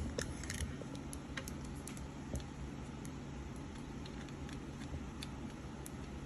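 Light clicks and taps of small tools and parts being handled on a workbench, several in quick succession about the first second, then a few scattered ones, over a steady low hum.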